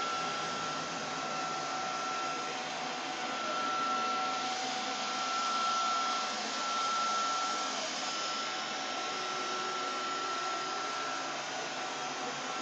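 Vacuum cleaner motor running steadily: a rush of air with a steady high whine, the loudness swelling slightly now and then.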